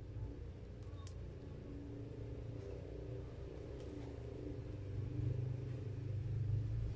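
Low, steady rumble that swells louder from about five seconds in, with a few faint clicks.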